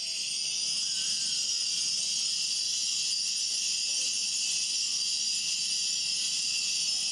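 Many small metal chimes hanging in fringes from the branches of a metal sound-installation tree, ringing together in a continuous high shimmer.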